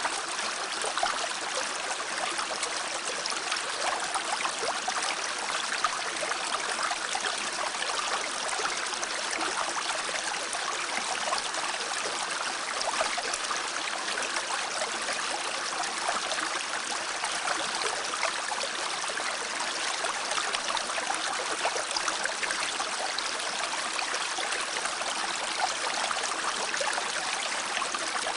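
Stream water running steadily, an even rushing babble with no breaks.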